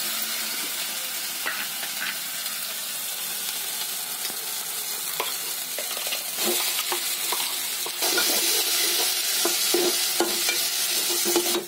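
Masala frying in hot oil in an aluminium pot: a steady sizzle that grows louder in the second half as ground onion-and-coconut paste goes into the oil. A steel ladle stirs it, scraping and knocking against the pot.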